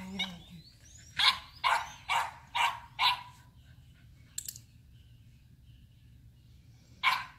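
A dog barking five times in quick succession, then a single sharp click from a training clicker about four and a half seconds in.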